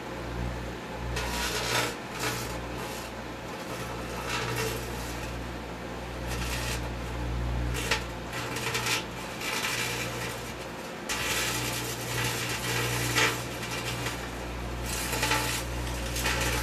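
Microwave oven running, a steady low hum, while the wire in a foot-long twist tie inside arcs and sparks, giving irregular crackles and pops over the hum.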